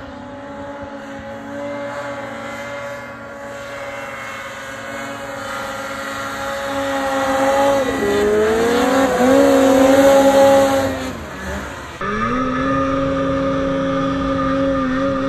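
Snowmobile engines running hard, the pitch dropping and then climbing again as the throttle is worked in deep powder. About twelve seconds in there is a sudden change to a single snowmobile engine heard close up, holding a steady high pitch.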